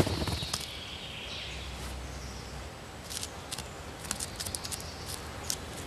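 A treecreeper's claws scratching and tapping on tree bark as it works at its nest hole: a scatter of short, sharp, high clicks from about three seconds in, over quiet forest ambience.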